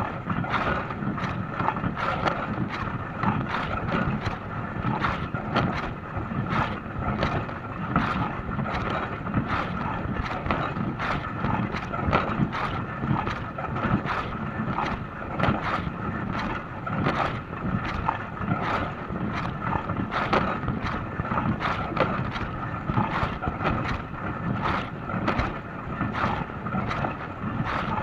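Dishwasher running its wash cycle: water spraying and splashing inside the tub, a steady rushing wash with constant irregular sharp splashes.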